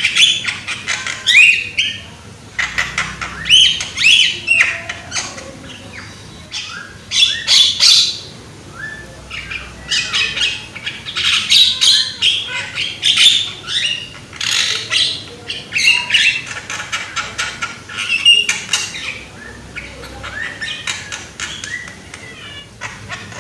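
Young Javan myna (jalak kebo) calling loudly: a rapid, unbroken jumble of whistles, chirps and harsh squawks with only brief pauses.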